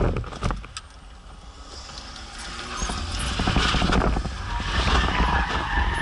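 BMW 325 engine and tyre noise heard from inside the cabin: the loud running cuts away abruptly at the start, stays low for about two seconds, then builds back up steadily as the car is driven hard again. Scattered clicks and rattles run through it.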